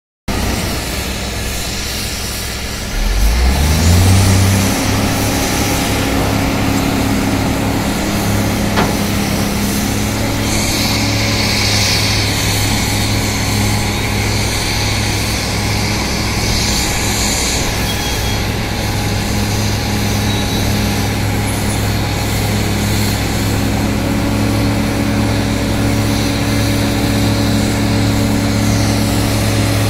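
Large crawler hydraulic excavator's engine revving up about three seconds in, then running with a steady drone under load as the excavator digs blasted rock. Brief rushes of higher noise come and go over it.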